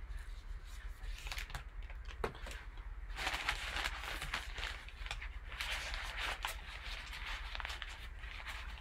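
Rustling of a nylon drawstring bag as gloved hands work it open around the football inside, in irregular swishes and small clicks, over a low steady hum.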